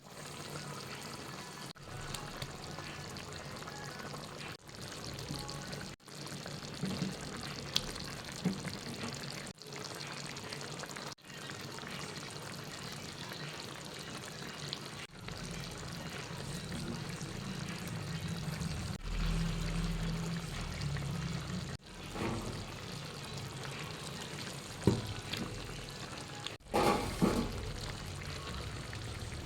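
Liquid sounds from cooking a chicken stew in a pot: pouring and bubbling, split into short pieces by several abrupt cuts, with a few sharper clatters near the end.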